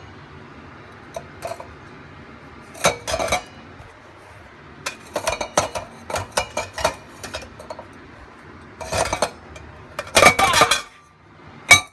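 Chrome parts of a slow juicer being handled and fitted together: scattered clinks and knocks of metal on metal in several clusters, the loudest just before the end.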